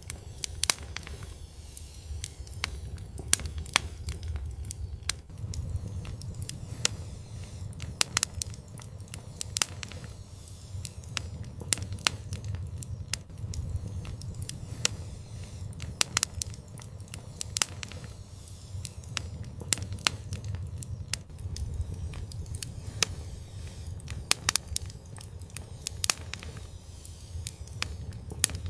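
Wood fire burning in an outdoor fireplace: irregular sharp pops and crackles over a steady low rumble of flames.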